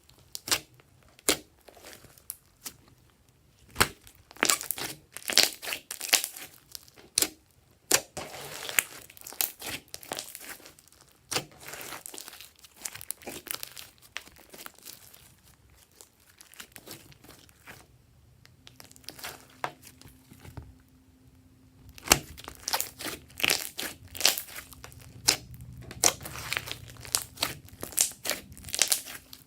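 Glossy slime being squished and stretched by hand: sticky crackling and sharp clicking pops in bursts, thinning out for a few seconds in the middle before picking up again.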